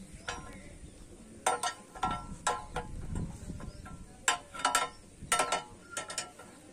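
Steel lever and rod clanking against a homemade hand rod-bending jig: sharp metal clinks, each with a brief ring, in a cluster about a second and a half in and another from about four seconds.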